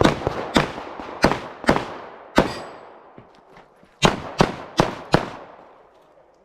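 Glock pistol firing in quick strings: five shots about half a second apart, a pause of about a second and a half, then four more shots in quick succession, each shot trailing off in echo.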